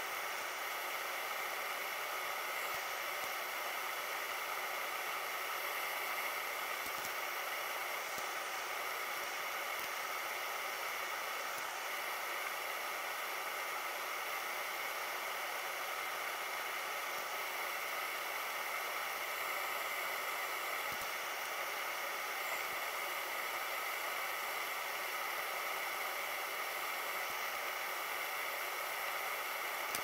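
Steady hiss at an even level, with faint steady tones running through it and no distinct events.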